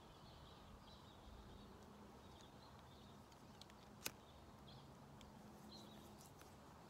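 Near-silent outdoor air with a few faint bird chirps, broken about four seconds in by a single sharp click as a cigarette lighter is struck.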